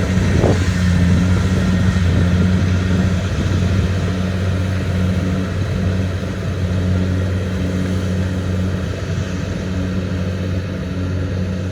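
Kubota DC-70 rice combine harvester running steadily under load, its diesel engine giving a constant low hum under the clatter and rush of the machine.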